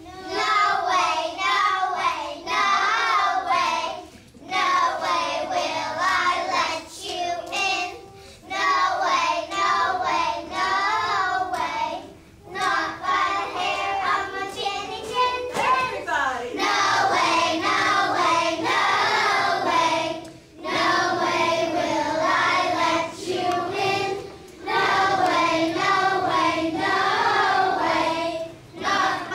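A group of kindergarten children singing together, in phrases of about four seconds with short breaks between them.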